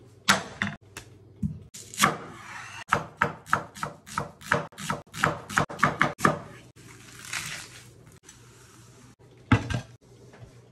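Chef's knife slicing an onion on a bamboo cutting board: a run of sharp chops, about three a second, for the first six seconds. About a second before the end, a louder knock and clatter as a steel pot with a glass lid is handled.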